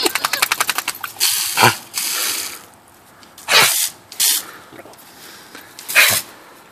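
Garden hose spray nozzle squirting a boxer dog in short bursts of spray while the dog snaps at the water. It opens with a quick run of wet snapping clicks lasting about a second, then separate bursts of spray a few seconds apart.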